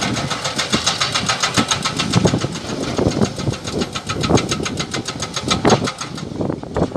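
Hydraulic breaker hammer on a Sany SY215 excavator pounding rock in a fast, even rattle of about ten blows a second over the excavator's diesel engine. The hammering stops about six seconds in.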